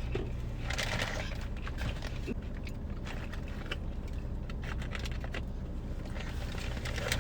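Close-up chewing and crunching of fried food, with a crackly burst about a second in and another near the end, and small clicks between, over a steady low hum.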